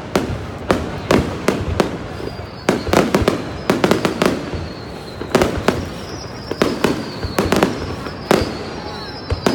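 Aerial fireworks shells bursting overhead in a rapid, irregular run of loud bangs, several a second. A thin whistle slides slowly down in pitch behind them, starting about two seconds in and again about six seconds in.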